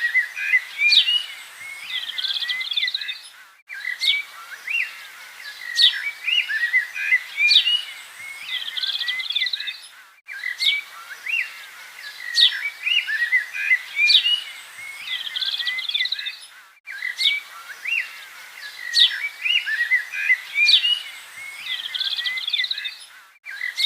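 Recorded birdsong: several birds chirping and trilling in quick, high notes. The same stretch of about six and a half seconds loops over and over, with a brief gap at each join.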